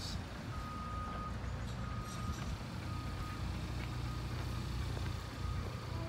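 A vehicle's reversing alarm beeps about once a second in one steady high tone, the first beep longer than the rest, over a steady low engine rumble.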